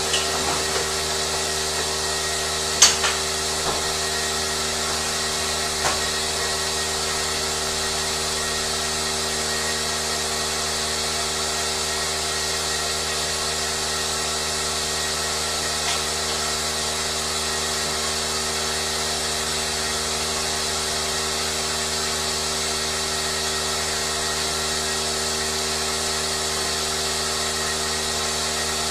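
A machine running steadily with a constant whirring hum, with a few sharp clicks in the first few seconds.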